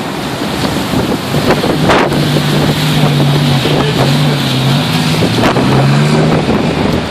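Strong storm wind just behind a passing tornado, buffeting the microphone as a loud, steady rush. A low wavering hum runs from about two seconds in until near the end.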